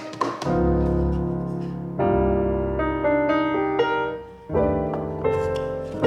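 Background music: a mellow piano/electric-keyboard track playing sustained chords that change about every two seconds.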